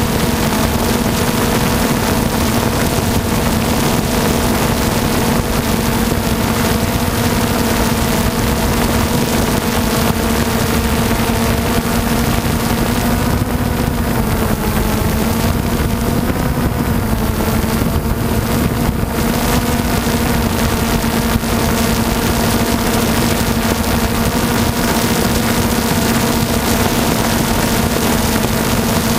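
Camera drone's electric motors and propellers whirring steadily, recorded from the drone's own onboard camera, with a constant hum and a rushing hiss. The pitch dips slightly about halfway through and then settles back.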